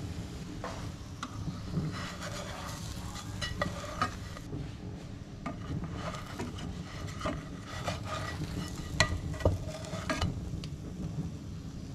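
Slotted spatula scraping and knocking against a nonstick frying pan as slices of garlic bread are turned and pressed, with a faint sizzle over a steady low hum. The sharpest knocks come near the end.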